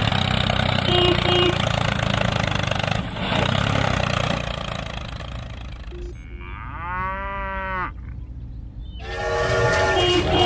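A motor runs with a steady noisy drone. About two-thirds of the way through, one long pitched call rises and falls, and near the end a steady, horn-like chord sets in and grows louder.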